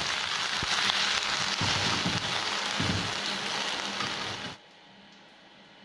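Kikil (beef skin), chilies and aromatics sizzling in a hot wok with a little water just added, stirred with a metal ladle that scrapes a few times. The sizzling cuts off abruptly about four and a half seconds in.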